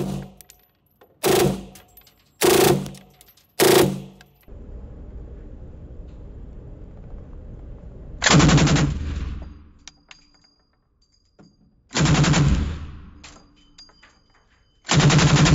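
A MAC-series machine pistol fired on full auto in short bursts: three very short bursts in the first four seconds, then three longer bursts of about a second each, every burst echoing off the walls of the enclosed range. Between the bursts there is a steady hum.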